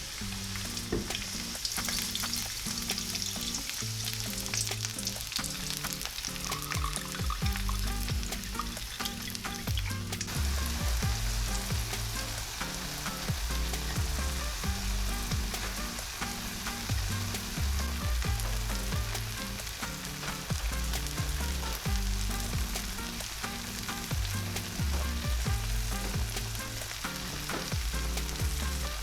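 Food frying in an oiled pan: a steady sizzle with fine crackling throughout, with background music.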